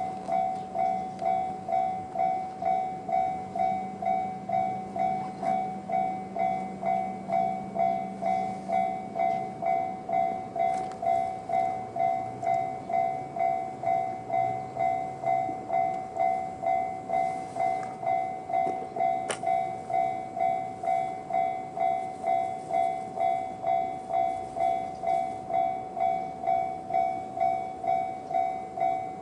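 Japanese level-crossing electronic warning bell in the JR standard tone, ringing steadily at about two dings a second, the signal that a train is approaching or passing.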